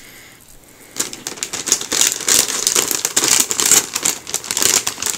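Clear plastic polybag crinkling as a bag of white plastic model-kit runners is lifted and handled. The crinkling starts about a second in and goes on continuously.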